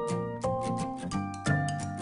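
Background music: a light instrumental tune of held pitched notes over a steady, even beat.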